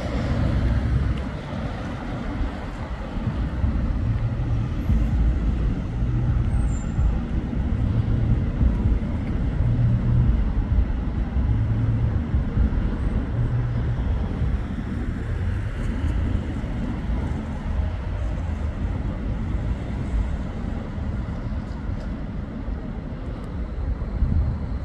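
Bombardier Flexity 2 tram approaching slowly along street track, a steady low rumble of the tram and surrounding traffic, with gusty wind buffeting the microphone.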